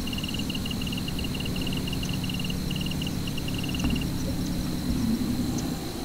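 Outdoor ambience: a steady low rumble, with a fast run of short high-pitched chirps that stops about four seconds in.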